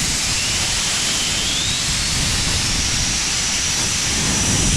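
Compressed air hissing steadily out of a Kobalt air compressor tank as the tank is emptied of pressure. A faint whistle in the rush rises in pitch over the first few seconds, then holds steady.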